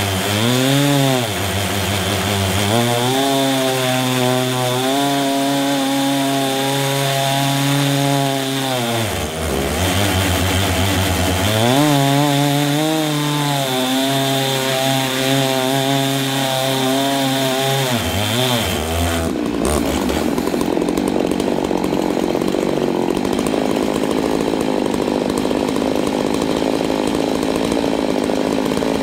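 Stihl MS880 and MS660 chainsaws at either end of a double-ended chainsaw mill, running flat out as they rip through a large oak log. The engine pitch sags under load and recovers a few times. About two-thirds of the way in, the engine tones give way to a steady rushing noise.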